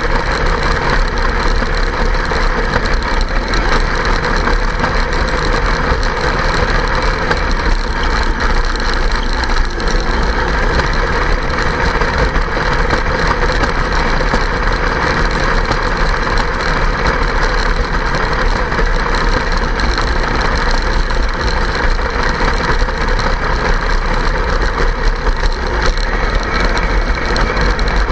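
Kyosho Blizzard RC snowcat's electric motor and gear drive whirring steadily as its tracks run through snow, with clonking and rattling that the owner thinks might be ice chunks but may be a fault.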